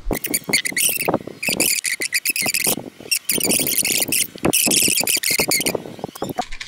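A screwdriver working against a Minsk 125 motorcycle engine's crankcase: scraping in short scratchy bursts, with many small clicks and taps in between.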